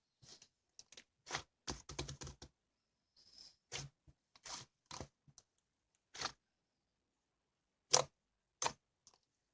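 White fluffy clay-slime being squeezed and poked by hand, giving short, irregular crackles and clicks with brief pauses between.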